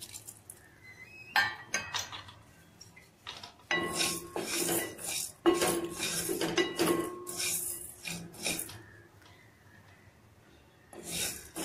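Wooden spatula stirring and scraping whole coriander seeds around a dry stainless steel kadai, the seeds rattling against the metal as they are dry-roasted. The stirring comes in several spells with short pauses between them.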